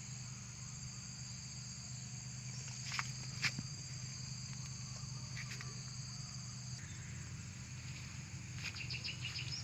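Insects trilling steadily in two high tones, fading out about two-thirds of the way through, with a low steady rumble underneath. Two sharp snaps sound about three seconds in, half a second apart, and a quick run of short chirps comes near the end.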